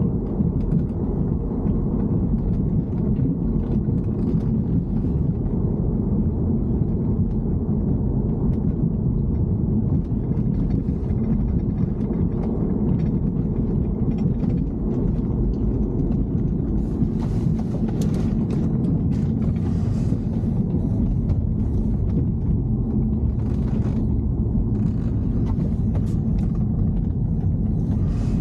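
BMW E90 3 Series on the move: a steady low rumble, with faint ticks and rattles above it that come thicker about two-thirds of the way through. It is recorded as evidence of an abnormal noise from the car.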